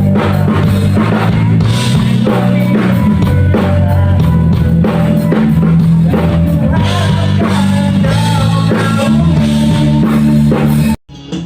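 Live rock band playing an instrumental passage with drum kit, bass and guitar at full volume. It cuts off suddenly near the end.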